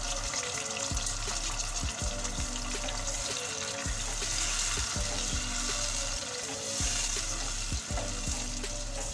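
Kababs in tomato chutney and oil sizzling in a pot on the stove while a silicone spatula stirs them, with repeated light knocks of the spatula against the pot.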